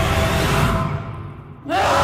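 Dark horror-trailer music fades down, then near the end a sudden loud screech cuts in, sweeping up in pitch.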